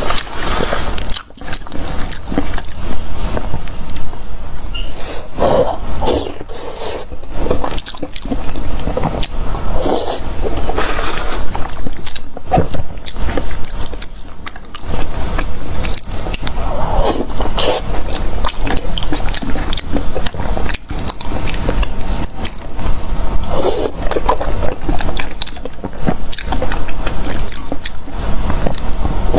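Close-miked eating, mouth sounds of chewing and biting, with many small clicks and scrapes running on without a break.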